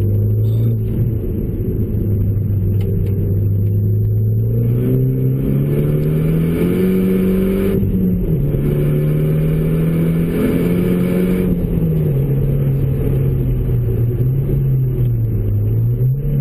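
Renault Megane RS engine through a K-Tec Racing 70 mm full exhaust, heard from inside the cabin. It cruises steadily, then pulls hard from about four seconds in with rising pitch and a hiss over it. The pitch drops sharply at a gear change near the middle, climbs again, then eases off back to a steady cruise.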